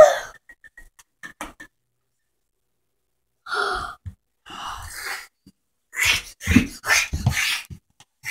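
A child's short high-pitched squeal right at the start, then a pause, then a child's gasps and breaths close to the microphone, coming thicker near the end.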